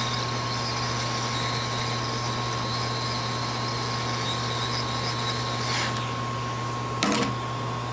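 Hot air rework station blowing steadily while small resistors are reflowed, over a constant low hum and a thin steady tone. The airflow hiss stops about six seconds in, and a short click follows about a second later.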